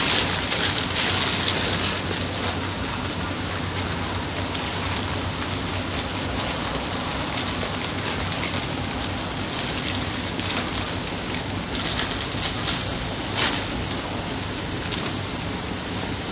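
Chicken and vegetable curry simmering in a stainless steel wok: a steady crackling bubble-and-hiss, louder in the first two seconds and again in a few spurts about ten to thirteen seconds in, over a faint low hum.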